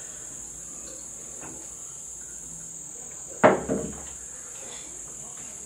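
Steady, high-pitched chirring of crickets, with a brief voice sound about three and a half seconds in.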